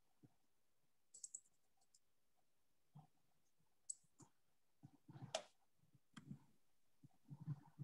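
Near silence broken by faint, scattered clicks and soft knocks of small handling at a desk, the loudest a thump about five seconds in.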